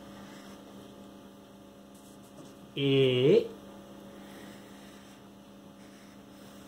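Steady electrical hum, broken once about three seconds in by a person's short wordless voice sound rising in pitch.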